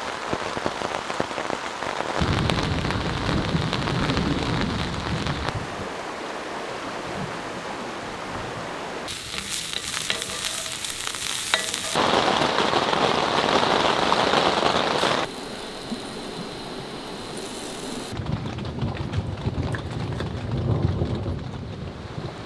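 Steady rain falling, with low rolls of thunder twice. The character of the rain changes abruptly a few times.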